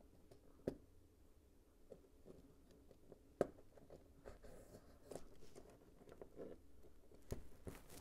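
Faint, sparse clicks and rustling of plastic LEGO pieces being handled. The sharpest click comes about three and a half seconds in, and two more come near the end.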